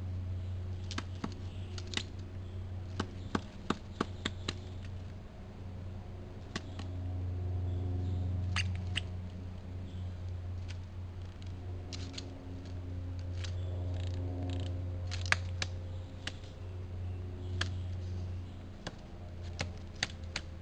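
Pileated woodpecker pecking and chipping at a tree, irregular sharp taps coming in short clusters with pauses between, over a steady low hum.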